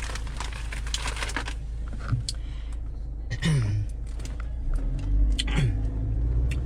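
Crunching of potato chips being chewed close to the microphone, then two short falling voice hums, with a car engine's low rumble coming up near the end.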